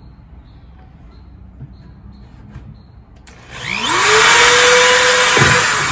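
Electric drill spinning up about halfway in and boring a 3/8-inch hole through the wall of a plastic food container, the motor whining at a steady pitch over the loud hiss of the bit cutting plastic. The motor stops shortly before the end.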